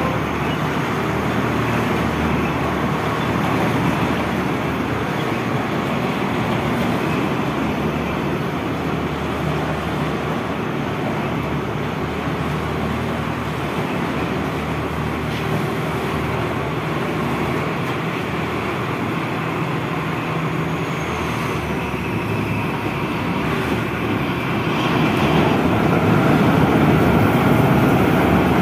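Swaraj 8100 combine harvester's diesel engine running steadily, growing louder near the end as the machine moves off.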